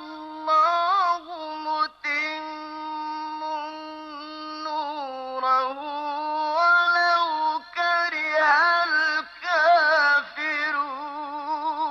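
A single unaccompanied male voice recites the Quran in a slow, melodic chant. It holds long notes with wavering ornaments and takes short breaths between phrases. The voice stops near the end.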